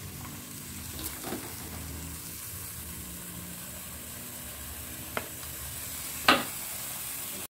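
Stir-fried oncom and bean sprouts sizzling steadily in a wok while a spatula scoops them onto a plate, with a few short scrapes and clacks of the spatula, the loudest about six seconds in. The sound cuts off abruptly near the end.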